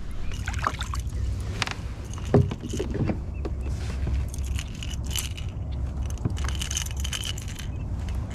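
Light clattering and jingling of fishing tackle and gear as a small largemouth bass is lifted from the water into a kayak and handled, over a steady low rumble.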